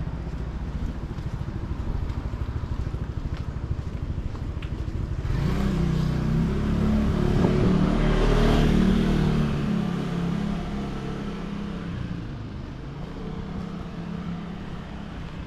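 A motor vehicle passes close by on the street: a low engine rumble swells about five seconds in, peaks, then fades away.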